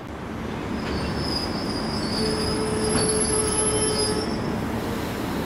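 Railway wheels squealing on the rails: several steady high-pitched tones over a continuous rumble of rail noise. The squeal sets in about a second in, is loudest around the middle and fades near the end.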